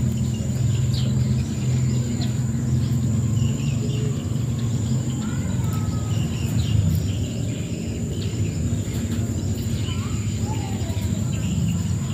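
Outdoor ambience: a steady low hum, a continuous high-pitched insect drone, and scattered short bird chirps.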